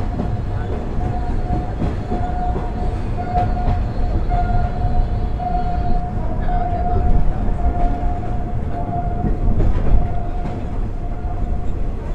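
Moving third-class passenger train heard from on board: a steady rumble of wheels on the rails, with a steady whine throughout and a few sharp clacks.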